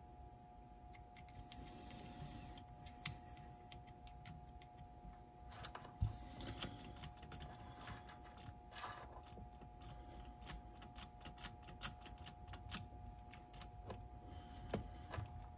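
Faint, irregular clicks and taps of small tools and parts being handled while a cassette deck's tape transport mechanism is reassembled.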